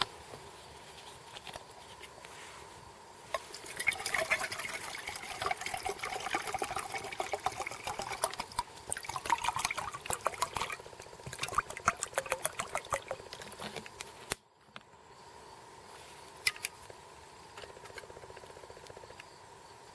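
Water being poured into a small metal cook pot, with light metal clinks, for about eight seconds starting a few seconds in.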